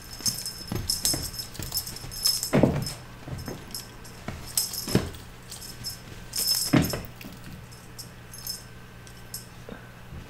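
Balinese kittens playing with a toy: bursts of high jingling from the toy, scuffling, and a couple of soft thumps about two and a half and seven seconds in as they pounce and land.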